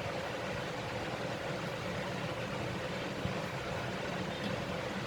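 Steady low hum with hiss from a running appliance, room background noise without distinct events.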